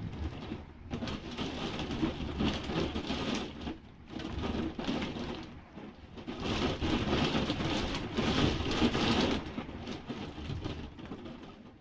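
Storm wind and rain rushing and battering, swelling and easing in gusts, with the strongest gust about two-thirds of the way through.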